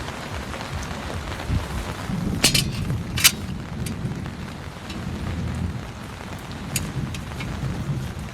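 Heavy rain drumming steadily on a tent roof under a low rumble of thunder. Two loud sharp clicks come about two and a half and three seconds in, with a few fainter ones later.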